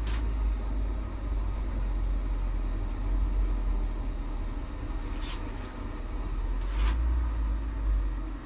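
Hand-held propane torch burning with a steady low rumble as its flame heats a stuck part in a vise to soften the thread-locking compound. Two short metallic clinks come about five and seven seconds in.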